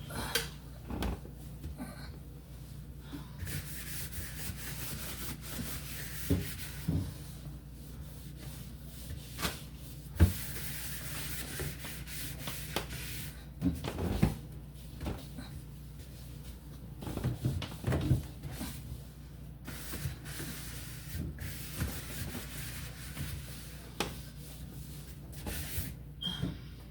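Brush scrubbing baking-soda paste on the plastic inside of a refrigerator: stretches of scratchy rubbing that start and stop, broken by light knocks against the shelves and walls, over a steady low hum.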